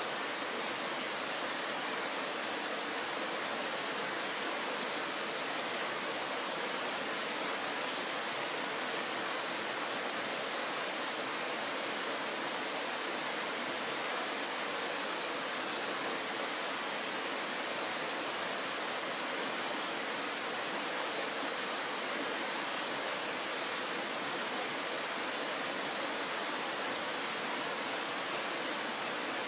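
Shallow mountain stream rushing over a stony riffle: a steady, even water noise that does not change.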